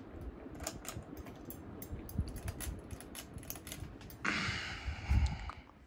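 Spinner ceiling fan running on low, with a stream of sharp, irregular clicks and ticks over a faint steady whir. A brief rustling noise comes in about four seconds in.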